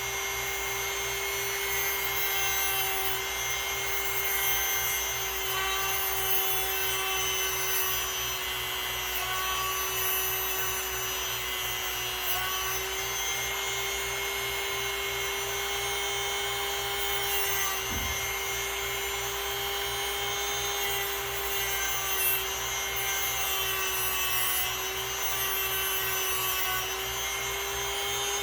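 Power tool grinding wheel running steadily at medium speed, shaping an ivory straight-razor scale: a steady motor hum with a rubbing grinding noise over it.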